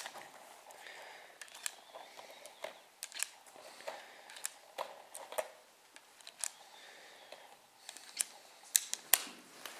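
Metallic clicks and clinks of 9 mm Luger cartridges being taken from the box and pushed one after another into the cylinder of a Korth Sky Marshal revolver. There is a sharp click at the start and two sharper clicks near the end.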